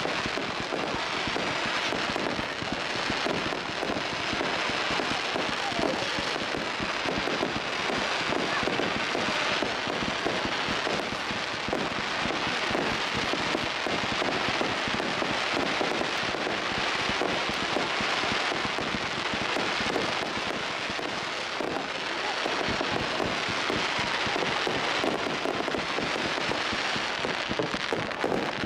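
A barrage of low fireworks with crackling effects, going off without pause: a dense, continuous crackle of many small pops and bursts.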